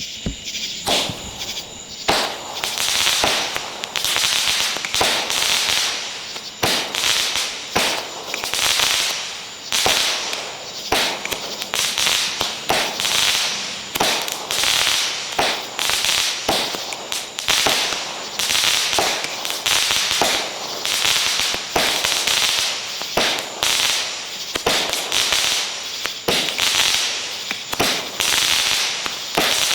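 Shelton's Mad Hornet "Night Blood" fireworks cake firing shot after shot, roughly once a second, each sharp launch report followed by a spray of crackling stars rather than a loud bang.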